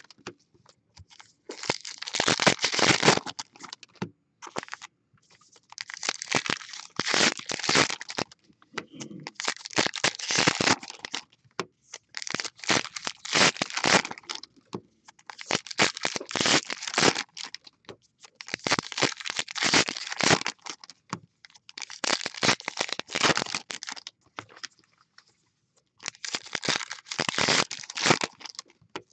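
Foil trading-card pack wrappers being torn open and crinkled by hand, in repeated bursts of crackling a second or two long with short pauses between them.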